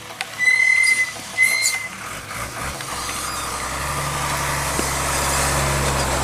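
Two short high-pitched toots about a second apart, then the diesel engine of a Mercedes-Benz Unimog snowplough truck running and growing louder as it drives slowly past, with tyre hiss on the wet road.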